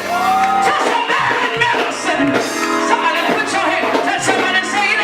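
Live gospel church music: a band playing under singing voices, with some shouting, as in a praise break.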